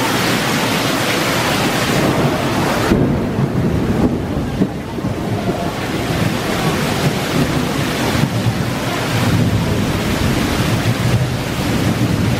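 Heavy tropical downpour, with water pouring off a roof edge and splashing onto a wet tiled patio: a loud, steady rush. The hiss softens for a couple of seconds about three seconds in, and low rumbling from wind on the microphone comes and goes.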